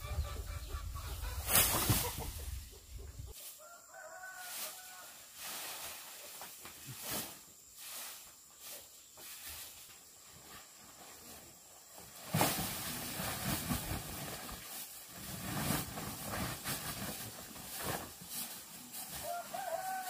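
Scattered sharp knocks of a hammer and machete working wooden planks, with chickens clucking and calling now and then.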